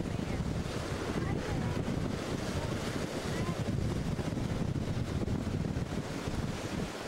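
Wind buffeting the camcorder microphone, a steady low rumble, with ocean surf washing underneath.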